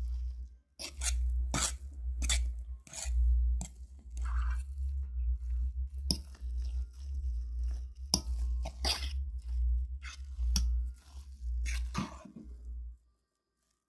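Mashed potatoes being worked by hand in a bowl with a utensil: irregular squishy strokes and knocks against the bowl, about one a second, with dull thuds of the bowl, stopping about a second before the end.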